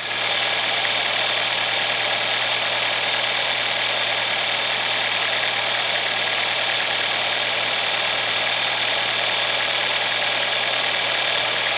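Audi A4 engine idling with a steady high-pitched whistle and hiss from a faulty air pressure diaphragm; the diaphragm is failing and needs replacing.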